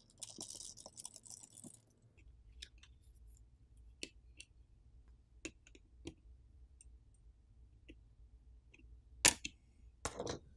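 Small clicks and taps of a precision screwdriver and fingers on a phone's metal midframe as the Torx screw and cover over the screen connector are removed. A scratchy rustle in the first two seconds, scattered light clicks, then one sharper click near the end followed by a short cluster of clicks.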